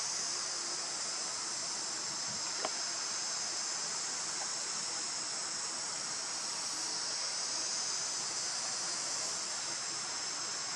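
Steady, high-pitched drone of an insect chorus, with a single short click about two and a half seconds in.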